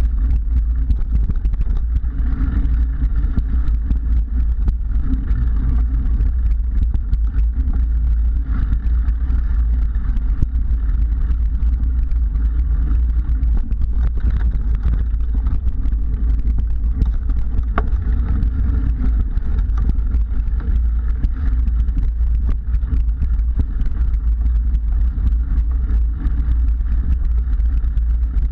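Mountain bike rolling along dirt singletrack, heard through a rider-mounted camera: a steady low rumble of wind and tyre noise, with small knocks and rattles from bumps in the trail.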